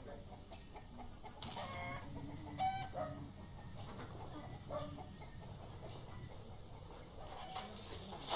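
Chickens clucking in the background, a few short scattered calls over a low, steady ambient hush.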